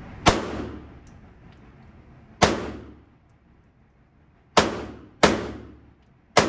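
.380 pistol fired five times, slowly and unevenly, a second or two between shots. Each shot ends in a short ringing echo off the indoor range lane.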